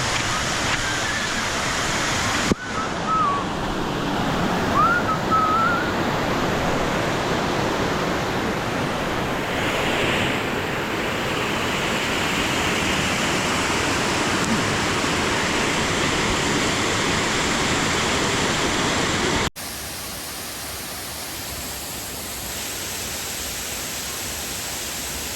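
Waterfall running in full flow, swollen by rain, a loud steady rush of water. A few short rising whistles sound a few seconds in, and the rush drops abruptly to a quieter level about three quarters of the way through.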